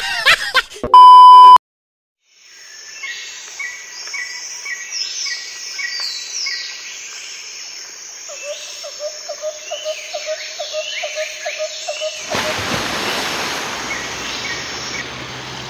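A loud electronic bleep tone cuts in about a second in, then birds sing with many short chirps and a repeated trill. From about twelve seconds in, shallow river water rushes over rocks under the birdsong.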